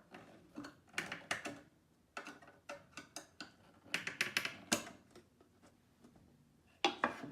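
Groups of quick taps and knocks from engineered-wood furniture panels being pressed and fitted together during assembly, the loudest knocks near the end.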